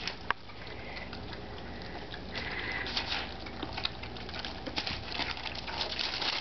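Several Old English Sheepdog puppies eating softened kibble from a shared metal pan: a steady patter of many small, quick clicks of chewing and lapping, busier from about two and a half seconds in.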